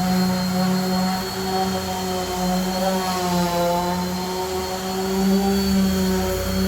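Electric sander running steadily on cedar wood, its motor giving a continuous pitched hum that dips slightly in pitch about three seconds in.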